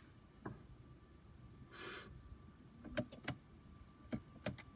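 Sharp plastic clicks in a car cabin as the newly fitted start/stop button and nearby controls are pressed, several times over, with a short hiss about two seconds in. No engine starts: the car is not in park.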